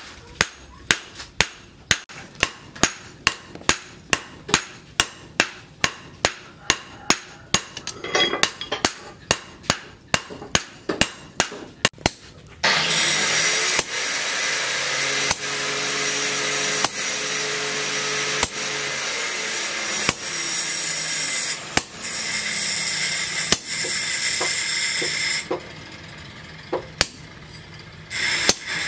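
Hand hammer striking a red-hot leaf-spring steel cleaver blade on a steel post anvil, about two blows a second. About twelve seconds in, a loud steady rushing noise with a low hum sets in under slower single blows on a hot-cut chisel held in tongs against the blade; the rushing noise drops away near the end.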